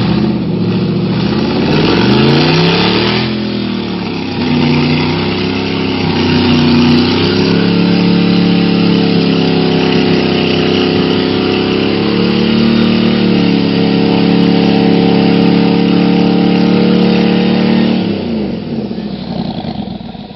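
Corvette 6.2-litre V8 in an off-road trial Jeep special revving hard under load in deep mud: the revs swing up and down for the first few seconds, then are held high for about ten seconds with small dips, and drop away near the end.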